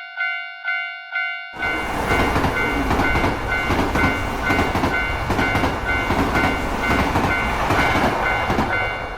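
Japanese railroad crossing warning bell dinging about two to three times a second; about a second and a half in, a passing train's loud rush of wheels on rails comes in and nearly covers the bell, dying away at the end.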